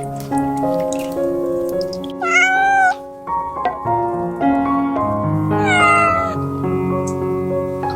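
A cat meowing twice over background music: one meow a little after two seconds in, and a second with a falling pitch near six seconds.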